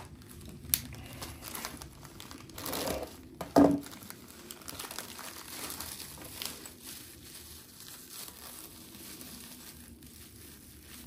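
Packaging crinkling and rustling as a replacement chainsaw clutch is unwrapped, with a click just under a second in and a sharp knock about three and a half seconds in.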